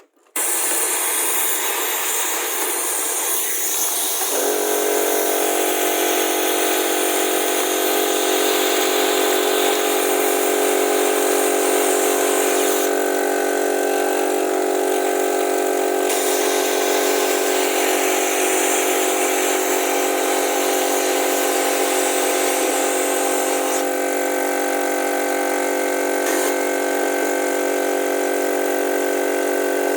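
Compressed-air vacuum gun running: a loud, steady rush of air through the gun starts suddenly, joined about four seconds in by a steady hum of several tones that holds throughout.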